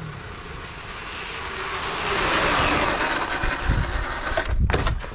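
Bajaj Pulsar RS200 motorcycle rushing toward the listener, its noise swelling to its loudest about two to three seconds in. The bike then brakes hard into a stoppie near the end, with a couple of low thumps.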